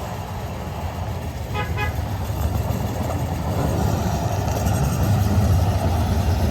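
Loram rail grinder train rumbling low and growing steadily louder as it draws closer, with a brief horn toot about one and a half seconds in.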